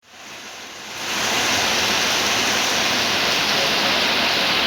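Heavy rain falling, a dense steady hiss that swells up over about the first second and then holds level.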